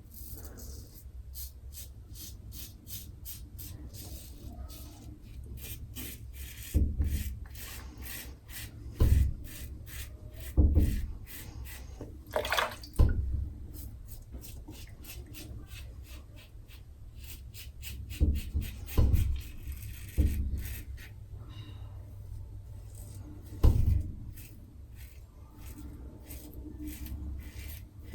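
Razor blade scraping through lathered stubble in runs of short, quick strokes, with several dull low thumps between them.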